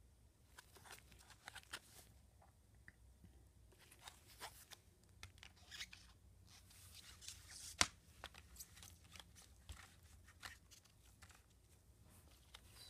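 Faint rustling and small clicks of carded silver bars and their packaging being handled, with one sharper click about eight seconds in.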